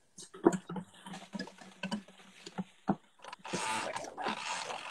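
Kitchen handling noise heard over a video call: scattered clicks and knocks of utensils and dishes, a low hum in the first half, and a short rush of noise about three and a half seconds in.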